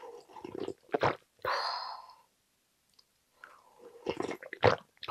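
Cold jjambbong broth sipped and slurped from a wooden spoon, with sharp mouth smacks, in two bouts: about a second in, and again about three and a half seconds in.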